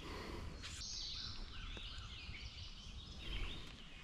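Songbirds singing in riverside woodland, phrases of repeated high notes coming one after another, over a faint low background noise.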